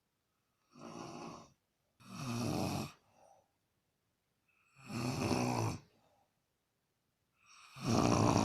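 A man snoring in his sleep: four snores about two seconds apart, each louder than the one before.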